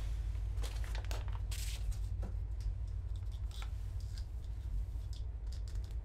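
Paper rustling and small handling clicks as a sheet of music is set on a stand and ear defenders are put on, over a steady low rumble. No bells are ringing yet.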